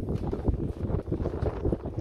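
Wind buffeting the microphone on a boat at sea: an uneven, gusting low rumble.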